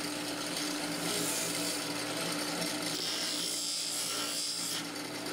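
Delta 6-inch bench grinder running with a steady motor hum while the cut end of a PVC pipe is held against the spinning wheel and wire brush to smooth it, giving a rough scraping over the hum. The scraping eases briefly a little past halfway, then picks up again.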